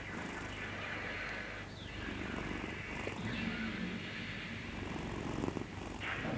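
A sleeping cat snoring, with slow breaths a couple of seconds apart.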